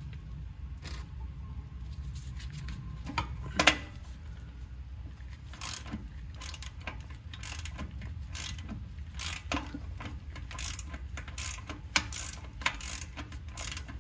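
Ratchet wrench clicking as a cut-down 27 mm socket backs out the shifter-spring plug on the transmission. It starts with a few separate sharp clicks, then clicks about twice a second from about halfway in.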